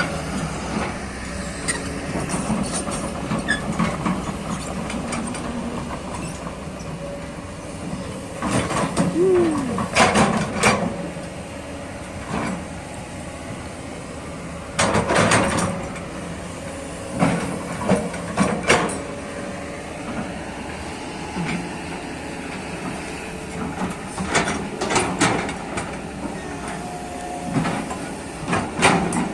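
Long-reach Kobelco excavator digging soil: its engine runs steadily, with clusters of clanks and knocks from the bucket and arm at irregular intervals.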